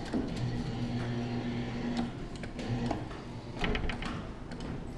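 Claw machine's motor running with a steady low hum for about two seconds, coming back briefly about a second later, with scattered clicks from the machine.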